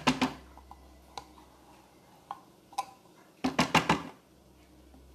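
Spatula scraping and tapping against a metal condensed-milk tin as the last remnants are scraped out: a few scattered ticks, then a quick run of sharp taps about three and a half seconds in.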